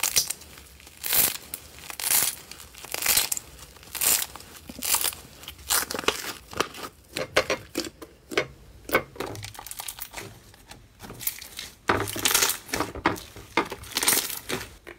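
Teal slime being stretched, kneaded and pressed by hand, making repeated wet crackling and squelching sounds. The bursts come about once a second and bunch together more tightly near the end.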